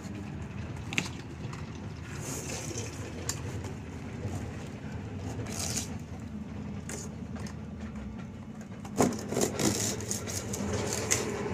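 Rustling and scraping of a rainscreen drainage mat being pressed and fitted by hand against a wall, with a cluster of sharp clicks and knocks about nine seconds in, over a steady low rumble.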